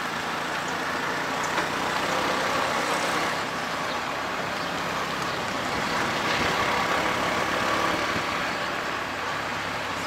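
Auto-rickshaw (tuk-tuk) engine running steadily while the three-wheeler drives along the road, mixed with wind and road noise.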